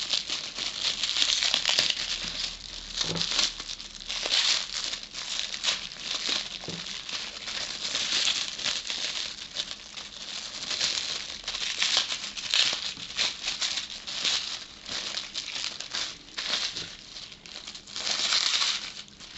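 Cling film crinkling and rustling without pause as hands unwrap a thoroughly wrapped packet of tobacco, with many small crackles.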